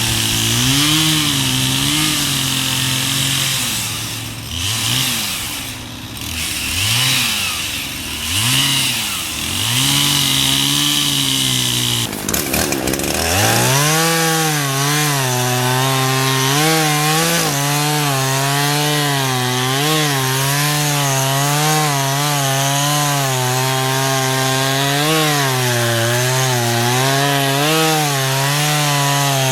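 Chainsaw running under load, cutting wood, its engine note dipping and recovering over and over. About halfway through it drops away briefly, then picks back up to a steadier high pitch for the rest.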